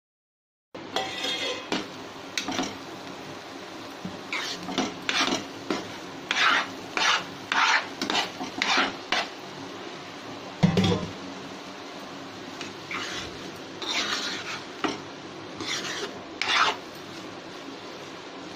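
Metal spoon scraping and stirring cooked rice khichdi in a frying pan, in a series of short rasping strokes, with one louder knock about halfway through.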